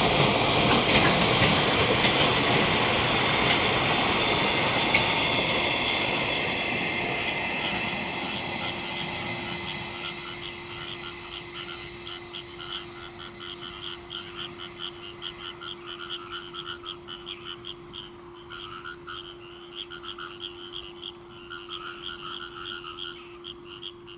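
A freight train of container wagons behind an EF66 electric locomotive rolling past, its running noise fading steadily over the first ten seconds as it recedes. Then a chorus of frogs from the rice paddies croaking in fast rhythmic pulses, over a steady low hum.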